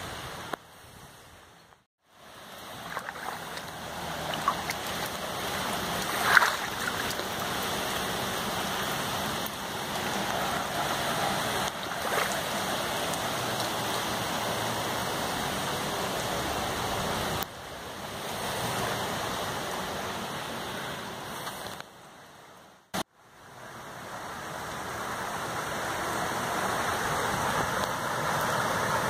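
Rushing floodwater: a steady watery hiss that drops away briefly near the start and again a little after two-thirds through.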